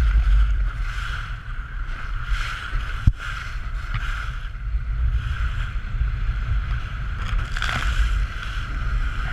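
Outboard motor running steadily as an inflatable boat speeds over choppy water, with wind buffeting the microphone and spray off the hull. A single sharp knock about three seconds in.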